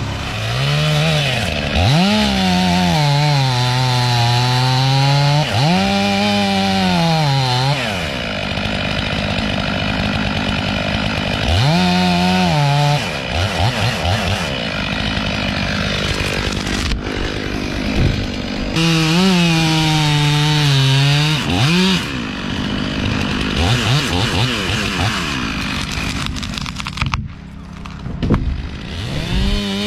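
Two-stroke chainsaw cutting into small evergreen trees, the engine revving up and then dropping in pitch as the chain bites into the wood. This happens in several separate spells.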